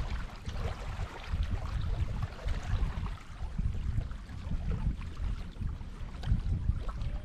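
Wind buffeting the microphone outdoors: an uneven, gusty low rumble that rises and falls throughout.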